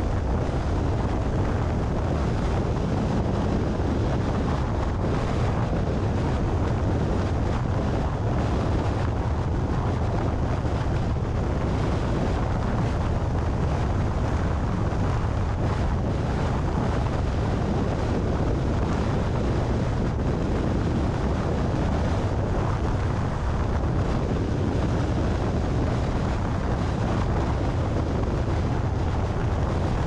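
Steady wind rush buffeting the microphone of a car travelling at about 118 km/h on an elevated expressway in strong wind, over a low, even rumble of road noise.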